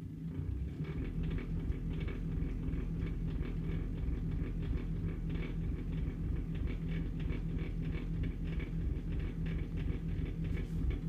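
Bosch SMU63N25EU dishwasher's pump running abnormally loud. It swells up within the first second into a steady hum with a fast, harsh rattling crackle over it. The owner takes this as the machine trying to draw water and getting none, with a fault in the water inlet, solenoid valve or Aquastop suspected, while no error is shown.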